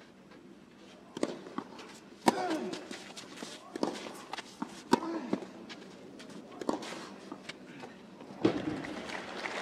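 Tennis rally on a clay court: about half a dozen sharp racket strikes on the ball, one to two seconds apart, with footsteps on the clay between them. A player's short grunt follows a couple of the shots.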